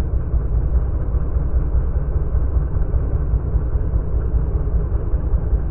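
A steady, loud low rumble without a clear pitch.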